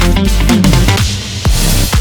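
Background electronic dance music with a steady beat and a rising swell about a second in.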